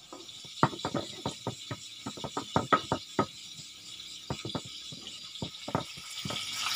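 Stone pestle knocking and grinding against a stone mortar as chilies and sweet soy sauce are crushed into sambal kecap: a string of sharp, irregular knocks, a few each second, the loudest near the start and about two to three seconds in.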